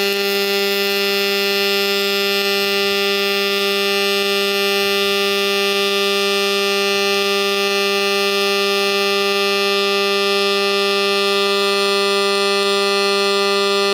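Pulse-spray MIG (GMAW) welding arc on steel plate: a steady, evenly pitched buzz from the pulsing weld current as a fillet weld is run along a T-joint.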